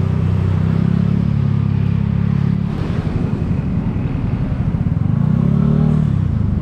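Honda Scoopy scooter's single-cylinder engine running while riding. It drones steadily, drops to a choppy low putter about three seconds in, then swells and falls again briefly near the end.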